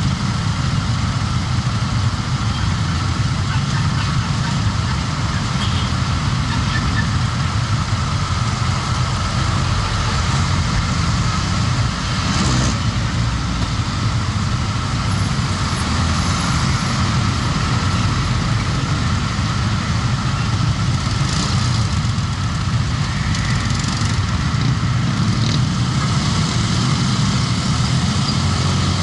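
Motorcycle engine idling close by, amid the steady hum of other motorcycles and cars waiting in traffic.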